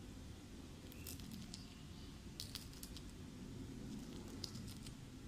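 Crispy fried shoestring potatoes (jhuri alu bhaja) crackling as a hand squeezes and crumbles them in a bowl, in three short bursts of crunching. The sharp crunch is the sign that the potato juliennes are fried fully crisp.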